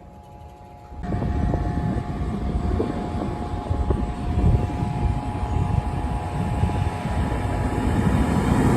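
A semi truck passing, a loud low rumble of engine and road noise that starts abruptly about a second in and holds steady.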